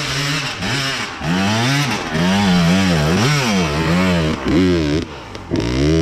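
Dirt bike engine under load on a steep hill climb, revved hard and let off again and again, about two throttle bursts a second. Near the end it dips briefly, then holds a steady higher-revving note.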